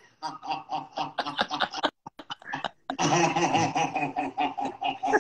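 Women laughing over a video call: a run of short rhythmic laughs, then after a brief pause a longer, wavering burst of laughter.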